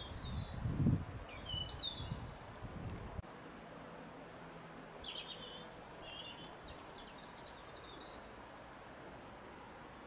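Wild birds singing and chirping in short calls and trills, with a low, gusty rumble in the first three seconds that stops suddenly, leaving a faint steady hiss behind the birdsong.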